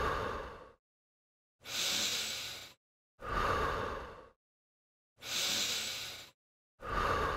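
Recorded breaths through the mouth, each about a second long with silence between them, alternating exhale and inhale: the breathing rhythm for a crunch, out while curling up and in while lowering.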